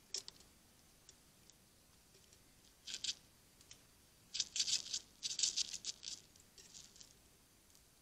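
Red squirrel clambering on a wooden bird feeder house, its claws scratching the wood in bursts of quick, high clicks. There is a short burst at the start and another about three seconds in, then a longer run in the middle that fades near the end.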